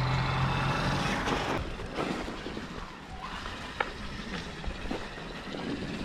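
Traxxas X-Maxx RC truck's brushless motor and drivetrain whining at a steady pitch under load as it tries to climb a snowy slope, cutting off about a second and a half in. After that come quieter rustling and a few light clicks.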